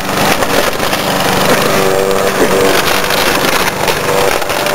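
Gasoline lawn mower engine running steadily at a constant pitch.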